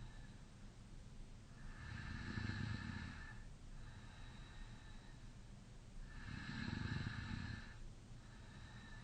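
A man snoring in deep sleep with his mouth slightly open: two long snores, each about a second and a half, with quieter breaths between them that carry a light whistle through the nose.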